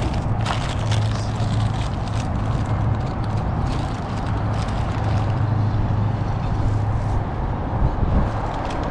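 A car running steadily, heard from inside the cabin as a low hum, with a few light crackles over it.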